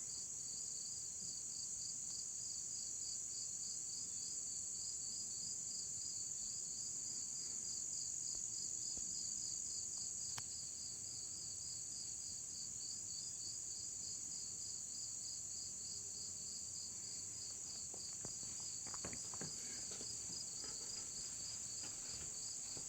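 Insect chorus: a steady high-pitched buzzing trill with a rapid, even pulsing chirp just below it. A few faint clicks come near the end.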